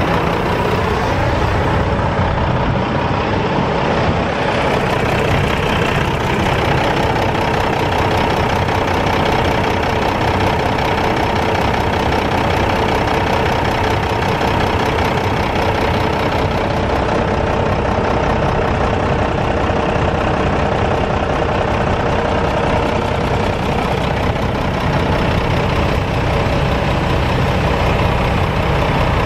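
1995 Mack CH613 dump truck's Mack EM7 12.0-litre inline-six turbo diesel running steadily at idle.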